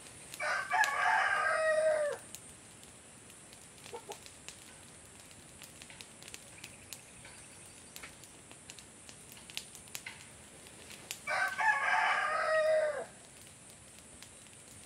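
A rooster crowing twice, about ten seconds apart, each crow lasting under two seconds and dropping in pitch at its end.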